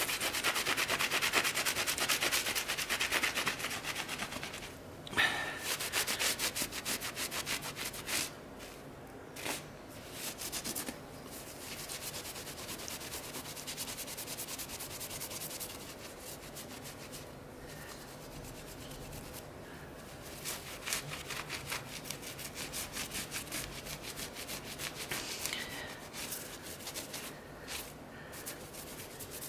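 A cloth rubbing briskly over a grouted glass-tile mosaic, buffing off the dried grout haze to bring up the shine. It makes rapid back-and-forth scrubbing strokes, loudest in the first few seconds.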